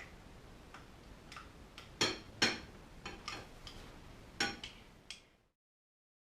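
About ten irregular clinks and knocks of a container or utensil against a mixing bowl as cream is added to beaten eggs. The loudest come about two seconds in and near four and a half seconds. The sound cuts off to complete silence about five and a half seconds in.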